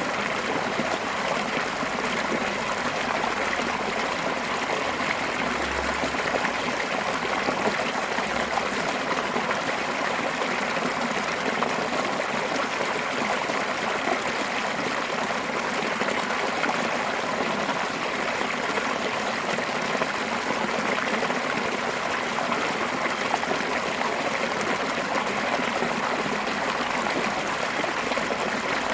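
Fast-flowing mountain stream pouring over a small curved drop, a steady rushing and splashing of water.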